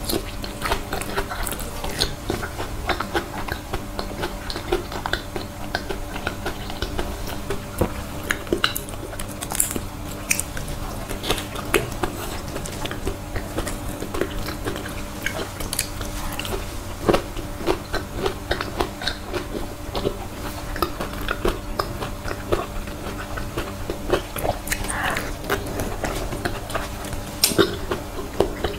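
Close-up chewing of soft, creamy durian flesh: many short, wet mouth clicks and squishes, with a faint steady hum underneath.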